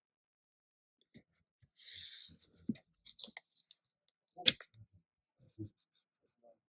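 Faint handling of low-tack tape, stencil and card on a craft mat: a brief rustle about two seconds in, a single sharp click about halfway through, then a few light ticks.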